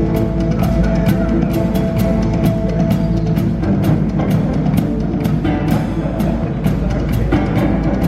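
Live rock band playing an instrumental, with drums keeping a steady beat under held notes that give way to a busier passage about halfway through.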